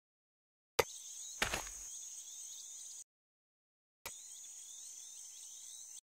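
Savanna nature ambience of a steady insect hiss with small birds chirping, heard in two stretches of about two seconds that each begin with a click and cut off abruptly, with a thump about a second and a half in.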